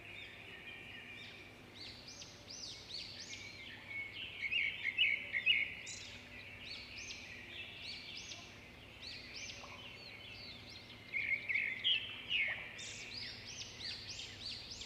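A bird singing: bouts of quick, high chirps and whistled notes, busiest from about two to six seconds in and again from about eleven seconds to the end, over a faint steady low hum.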